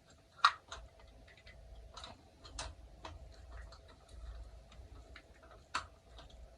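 Irregular metallic clicks and ticks of an Allen-wrench multitool working on a mountain bike's loose bottom bracket, with two sharper clicks, one about half a second in and one near the end.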